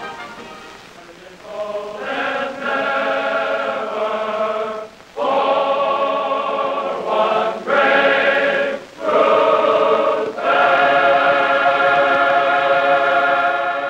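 A choir singing long held chords as closing music, in phrases a few seconds long with short breaths between them. It is soft for the first couple of seconds, then swells and stays loud.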